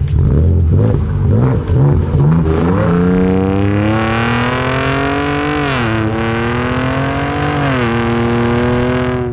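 Next-Gen Ford Ranger Raptor's 3.0-litre twin-turbo EcoBoost V6 through its active exhaust in Baja mode, the loudest setting. The engine revs unevenly for about three seconds, then accelerates hard with rising pitch that drops sharply twice, about six and eight seconds in, as it shifts up.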